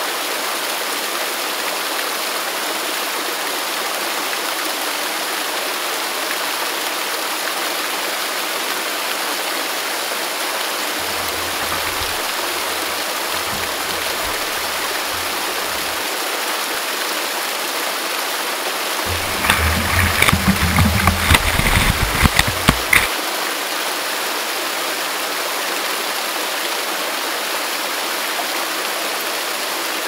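Steady rushing roar of a large waterfall and fast river water. About two-thirds of the way through, a few seconds of louder, uneven rumbling bursts break in over it.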